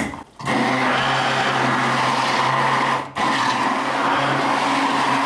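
Philips hand blender running in a plastic beaker of liquid, a steady motor hum with a churning wash over it. It stops briefly about three seconds in and starts again.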